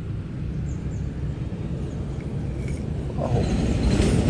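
Car engine rumbling low and steady, growing louder near the end.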